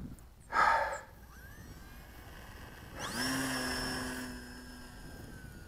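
Electric RC plane's brushless motor and propeller spinning up about three seconds in with a rising whine, holding a steady hum for about a second for takeoff, then easing back. A short, loud burst of tones comes about half a second in.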